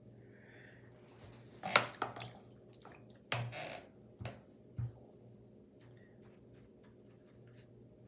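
Watercolour brush being rinsed in a water tub: a few sharp taps and knocks against the tub, a short splashy swish, then two light knocks.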